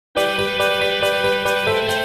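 Background music: a melodic instrumental tune that starts abruptly, with notes changing every fraction of a second over a held low note.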